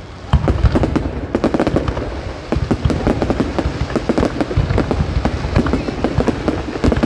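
Aerial fireworks bursting in a dense, continuous barrage: rapid overlapping cracks and crackles over low booming. After a brief dip at the very start, the barrage picks up sharply and keeps going.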